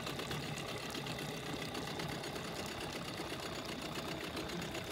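Small outboard motor on an inflatable dinghy idling steadily.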